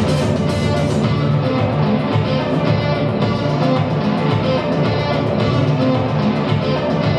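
Live synthwave-funk music: an electric guitar played over an electronic backing with a pulsing bass line and steady beat.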